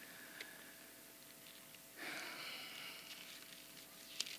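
A quiet pause over a faint steady hum. A faint click comes near the start, and about two seconds in a soft hissing rustle lasts about a second.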